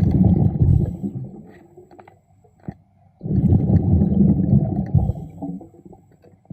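A diver breathing out through a regulator underwater: two low bursts of exhaust bubbles about three seconds apart, each lasting a second or two, with quiet between breaths.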